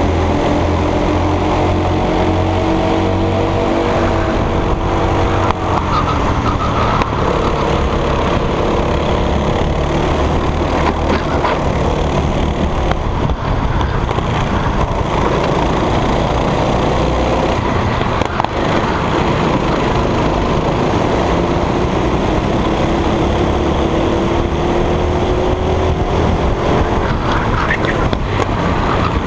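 Go-kart engine running hard under racing load, its pitch rising and falling with the throttle through the corners and climbing again on the straight later on.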